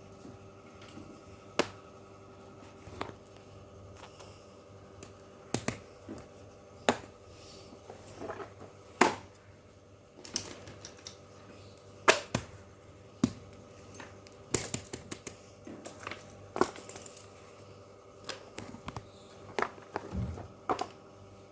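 Fidget toys being handled: irregular sharp clicks and taps, some single and some in quick clusters, over a faint steady hum.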